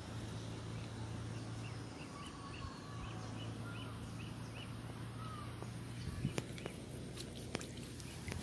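Outdoor wetland ambience: a faint chirp repeating about two to three times a second for the first few seconds, a few faint drawn-out calls, over a steady low hum. A few sharp clicks come in the last couple of seconds.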